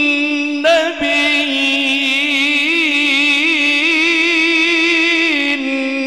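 Male qari reciting the Quran in the melodic murattal/mujawwad style, drawing out 'wa khātam an-nabiyyīn' (Surah Al-Ahzab 33:40) in long, ornamented notes with wavering pitch and a brief break about a second in. The voice comes through a microphone and PA with reverb.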